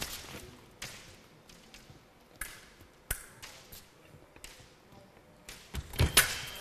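Fencers' shoes tapping and stamping on the piste, with scattered sharp knocks about a second apart. Near the end comes a quick, louder flurry of footwork and foil blades striking as one fencer attacks with a lunge.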